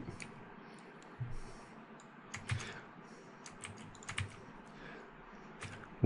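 Faint, scattered clicks and taps from computer input while handwriting is erased on a digital whiteboard, over a low room hiss.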